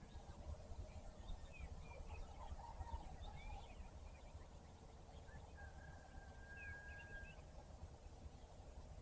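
Faint morning birdsong: scattered short chirps and one long, steady whistled note about two-thirds of the way through, over a constant low rumble.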